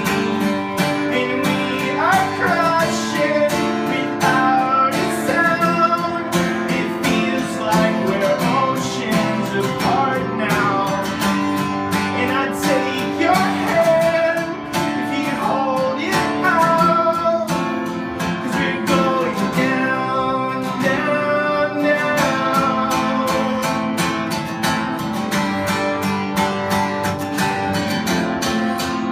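Acoustic guitar strummed steadily in a live solo performance, with a man singing over it.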